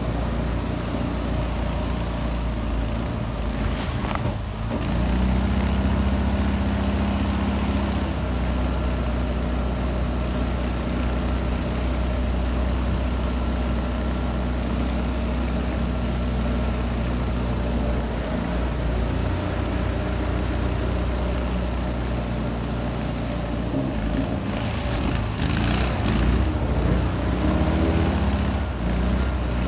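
Copperhead 18 mud motor running steadily, pushing a boat through flooded timber; it dips briefly about four seconds in, comes back louder, and picks up again near the end.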